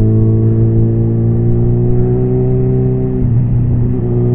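Suzuki B-King motorcycle's inline-four engine pulling steadily in gear, its pitch creeping slowly upward, with a brief dip about three seconds in.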